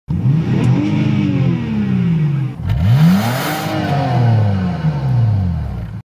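Car engine revved twice while parked. Each rev rises and falls in pitch, and the second is longer and falls away slowly.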